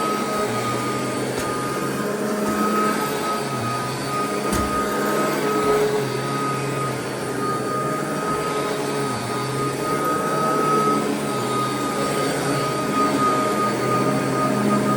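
Royal vacuum cleaner running steadily over carpet, its motor with a high steady whine, picking up debris with a sharp click about four and a half seconds in.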